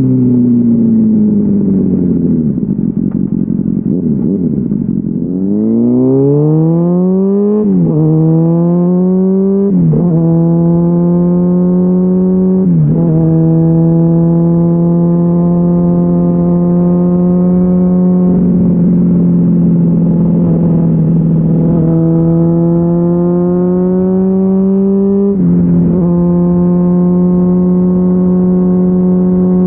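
Honda CBR600RR inline-four through a GPR Deeptone exhaust with no dB-killer. The engine slows off the throttle for the first few seconds, then accelerates hard, its pitch climbing and dropping sharply at each of three quick upshifts. After that it holds a steady cruise, with one more rise and upshift near the end.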